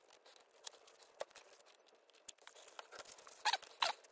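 Blue masking tape being peeled off a painted plastic model airplane after spraying: small crackles and crinkles, then two louder tearing rips near the end.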